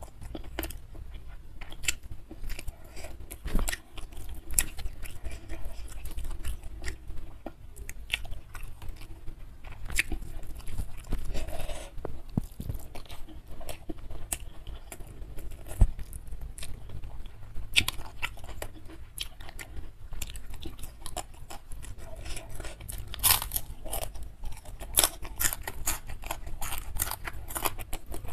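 Close-miked chewing of a mouthful of rice and grilled fish, with many sharp mouth clicks. Fingers pick up more of the food between bites.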